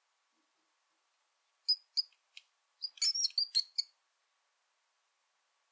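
Mouse squeaking: a few short, high-pitched squeaks about a second and a half in, then a quick run of squeaks around three seconds in.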